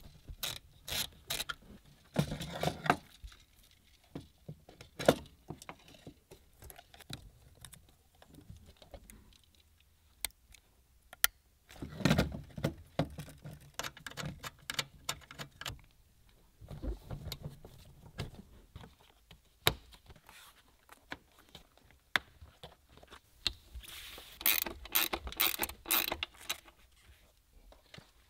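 Hand-tool and hardware noise from fitting a replacement car seatbelt: a ratchet wrench on the belt's anchor bolts, metal clicks and jangling from the belt hardware, and knocks against the plastic interior trim, with a few dull thumps. A quick run of rapid clicks comes near the end.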